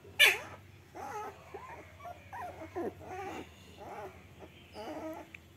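Young puppies whimpering and whining as they play-fight, with one sharp yelp right at the start, the loudest sound, followed by a string of short whimpers about every half second.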